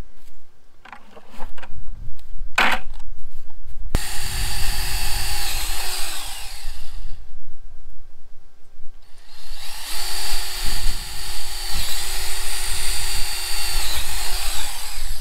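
Cordless drill boring cross holes through 3/4-inch PVC pipe, after a few short handling knocks. The motor runs steadily for about three seconds and winds down, then runs again for about five seconds near the end with a couple of brief dips.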